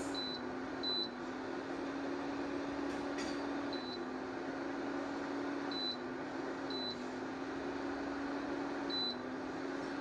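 Philips Viva Collection HD4938/01 induction cooktop's touch panel giving a short high beep at each key press, six beeps at irregular intervals. Under them the cooktop runs with a steady hum.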